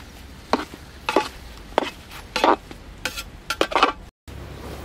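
Metal spoon scraping and knocking against the sides and bottom of a large metal pot while mixing thick mashed-potato filling, about six or seven strokes.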